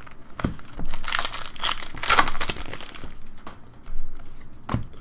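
Wrapper of a hockey card pack being torn open and crinkled by hand, loudest about one to two and a half seconds in, with a few sharp clicks as the cards are handled.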